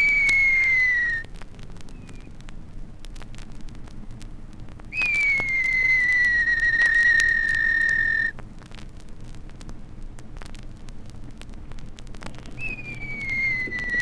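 Baby rhea chicks crying: long whistles that fall slowly in pitch. One ends about a second in, another runs from about five to eight seconds, and a third starts near the end.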